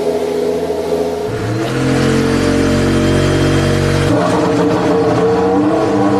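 A 2016 Formula 1 car's 1.6-litre turbocharged V6 hybrid power unit on its first fire-up, idling, then revved and held for about two and a half seconds before dropping back to idle.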